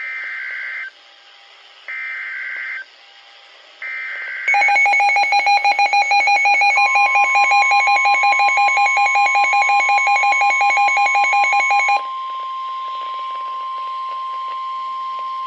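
Emergency Alert System alert on NOAA Weather Radio. It opens with three short screeching bursts of SAME header data, about a second apart. Then a weather radio receiver sounds a loud, rapid beeping alarm, and the steady single-pitch warning tone begins under it. The warning tone carries on alone for a few seconds after the beeping stops.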